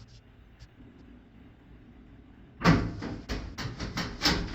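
A knock about two and a half seconds in, then a quick run of clicks and rattles from the washer's metal parts being handled as its top-panel screws come out.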